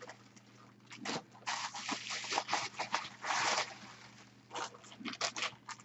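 Bubble wrap and a small zip-top plastic bag of pipe tobacco crinkling and rustling as they are handled. The sound comes in irregular bursts of a second or so, with short pauses between.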